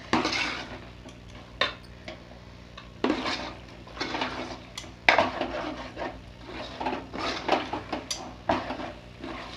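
Metal spoon stirring thick chicken masala in a metal pot, with irregular clinks and scrapes of the spoon against the pot's sides and bottom.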